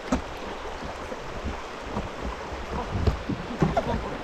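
River rapids rushing and splashing around a small boat, with a few short sharp sounds just after the start and again about three seconds in.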